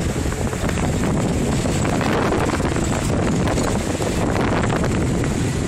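Wind buffeting the microphone on the deck of a sailing yacht under way: a steady, dense rush that is heaviest in the low end.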